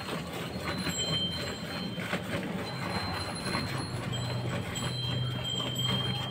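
Milk squirting from a cow's teats into a steel bucket by hand milking, in rhythmic spurts about two a second. A steady low hum joins about four seconds in.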